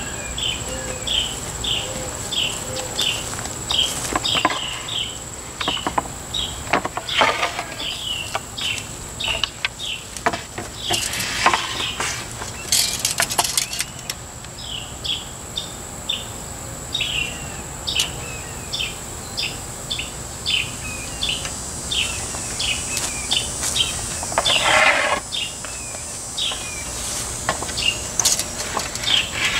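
Outdoor chirping repeating about twice a second over a steady high whine, with scattered scrapes and knocks as pine boards and a steel tape measure are handled and marked with a pencil.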